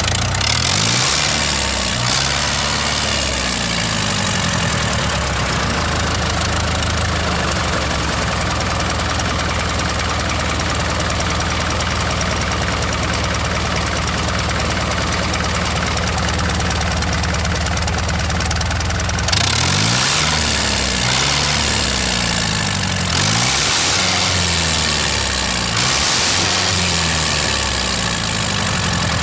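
Tractor engine running with a knocking idle. Its speed rises and falls in the first few seconds, holds steady, then changes again several times in the last third.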